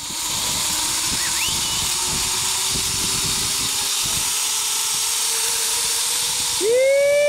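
Zipline trolley running along the steel cable: a steady whirring hiss with a faint hum that slowly rises in pitch. Near the end a loud, held, steady tone joins it and holds to the close.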